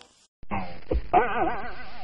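A cat's long, wavering meow, starting a little after a second in, after a short sound and a soft knock.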